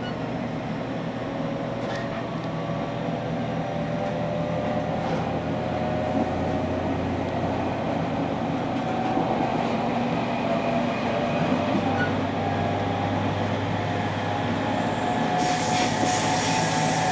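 JR Kyushu 813 series electric train running at speed, heard from the front of the car: wheels rumbling on the rails under a whine from the traction motors that climbs slowly in pitch as the train gathers speed. A brighter hiss joins near the end.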